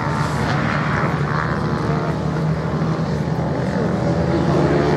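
Racing motorcycle engines running on the beach course, a steady overlapping drone whose pitch rises and falls a little as the riders work the throttle.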